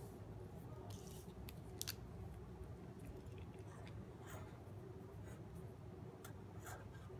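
A felt-tip marker is handled with a few small clicks as it comes out of a cloth marker roll. About four seconds in, faint scratchy strokes of the marker writing on paper begin. A low steady hum runs underneath.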